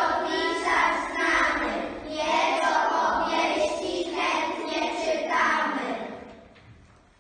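A group of young children's voices singing together in unison, in several short phrases, fading out near the end.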